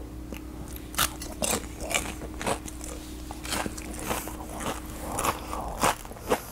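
Close-miked chewing of a deep-fried, breadcrumb-coated syrup-soaked milk sweet, the crisp coating crunching in sharp bites about twice a second.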